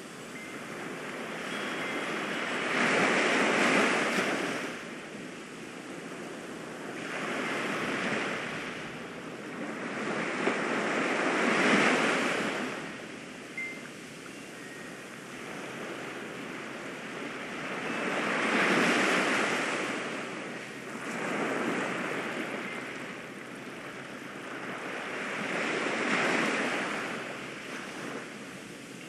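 Ocean surf: waves rolling in and washing back, swelling and fading six times at uneven gaps of a few seconds.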